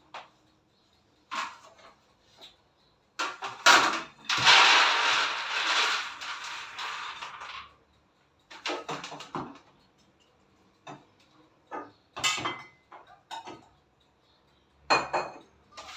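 Raw peanuts clattering in a dish as they are handled for sorting: a dense rattle lasting about four seconds, a few seconds in, with scattered clicks and knocks of the nuts and dish before and after.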